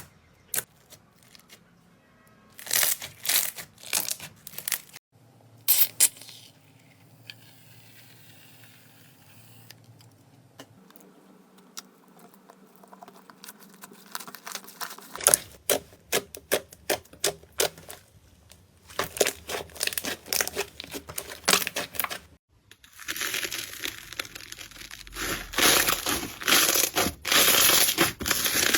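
Slime being squeezed, poked and pressed by hand, giving rapid clicking pops and crinkly crackling. There is a quieter stretch, then dense, loud crackling near the end, and the sound shifts abruptly several times between clips.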